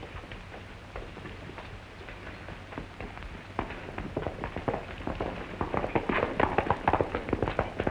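Horses' hoofbeats: a few scattered hoof knocks, then from about three and a half seconds in a quickening clatter of several horses setting off, denser and loudest near the end.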